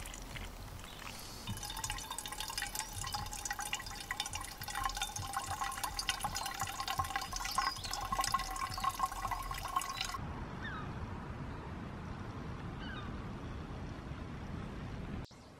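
Water pouring and trickling as it is run through a Sawyer squeeze-type water filter, a busy splashing trickle. About ten seconds in it cuts off suddenly, leaving a steady low rumble.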